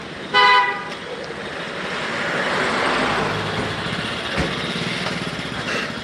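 A vehicle horn gives one short toot about half a second in, then traffic noise swells and fades as a motorcycle and an open safari jeep drive past close by.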